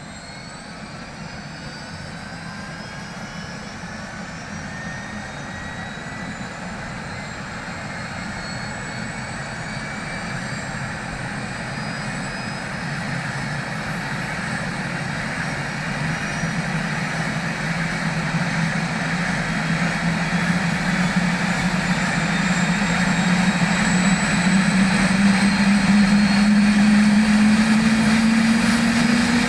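Airbus H125 (AS350 B3 Écureuil) helicopter's turboshaft and rotor spooling up: a turbine whine and a low hum rise steadily in pitch and grow louder throughout.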